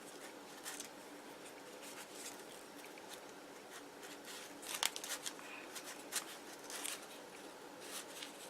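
Faint rustling and light clicks of hands wrapping thread around cotton wool, with a few sharper ticks about five to seven seconds in.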